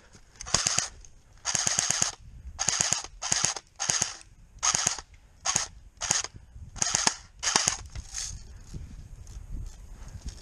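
Electric airsoft rifle firing about ten short full-auto bursts, each a rapid string of clicks under half a second long, most of them close by, dying away after about eight seconds.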